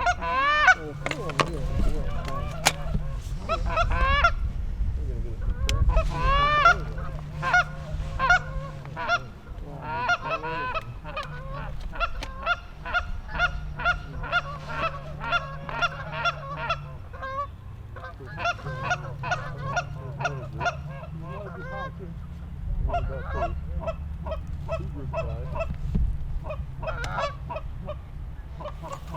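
Geese honking and clucking over and over: a long run of short, pitched calls, some in quick strings of several a second.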